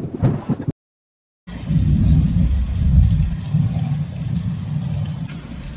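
Heavy thunderstorm downpour: a loud, low, fluttering rumble with faint rain hiss above it. The sound cuts out completely for under a second, about a second in.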